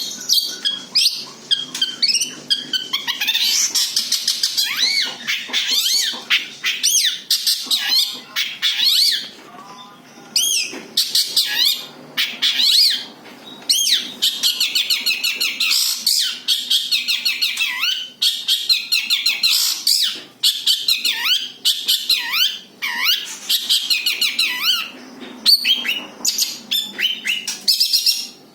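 Long-tailed shrike (cendet) singing its own natural song with no mimicked phrases: a dense, fast chatter of short chirps and sweeping whistles, broken by a few brief pauses.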